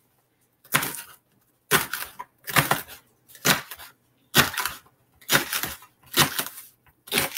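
Kitchen knife chopping through fresh celery stalks: eight crisp crunches, about one a second.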